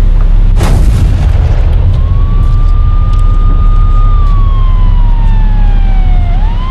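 A sharp crack about half a second in, then a police siren wailing: one tone rises, holds, slides slowly down and rises again, over a loud low rumble.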